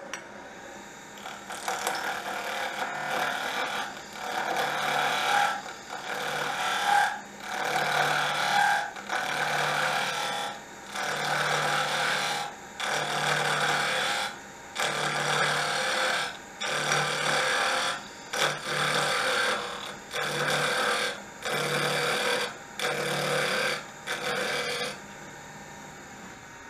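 Wood lathe spinning a square pen blank while a flat scraper roughs it round: about fifteen scraping passes, each a second or so long with short pauses between, over the steady running of the lathe. The passes stop shortly before the end, leaving the lathe running.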